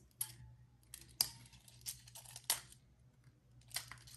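Two hard plastic diving trolling lures and their metal treble hooks clicking and clinking against each other as they are handled, about half a dozen light sharp clicks.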